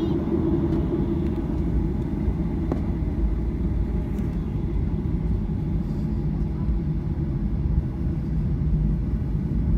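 Steady low rumble inside the cabin of a Boeing 737-800, its two CFM56-7 engines running.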